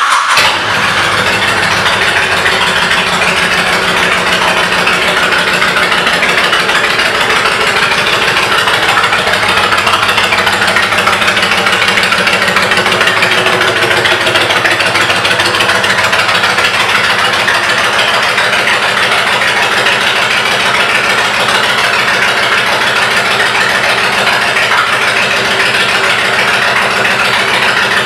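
2008 Honda VTX 1300C's V-twin engine, fitted with Vance & Hines pipes, fires up at the very start and then idles steadily.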